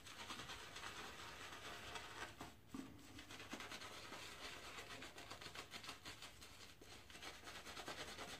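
Shaving brush bristles swirling lather on the face: a faint, fast, scratchy brushing rustle, with a brief pause about two and a half seconds in.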